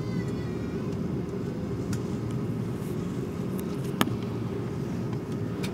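Steady low rumble of an Airbus A330-300's cabin while the jet taxis, its engines at taxi power. A single sharp click about four seconds in.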